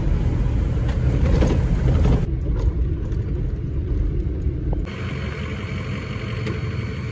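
Ford F-250 Super Duty pickup truck's engine and tyre rumble heard inside the cab while driving on a dirt road, broken by abrupt cuts. About five seconds in it changes to a quieter, steady running sound of the truck parked.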